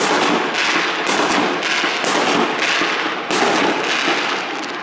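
Fireworks going off in a dense, continuous barrage of overlapping bangs and crackling, with a fresh run of louder bangs about three seconds in.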